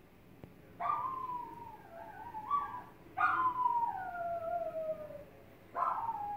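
White miniature schnauzer howling: three long howls, each starting high and sliding slowly down in pitch, the last one beginning near the end.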